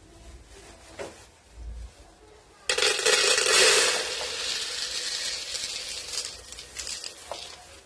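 A sudden loud hiss about three seconds in, loudest for the first second and easing off over the next four, after a few light clicks.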